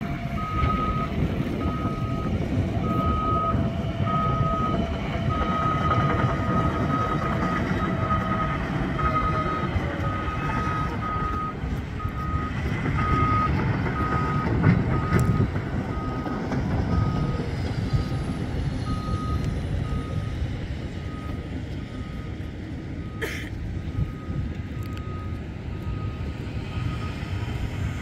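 Backup alarm of heavy earth-moving equipment beeping at one steady pitch, about one to two beeps a second, over a steady low rumble of machinery.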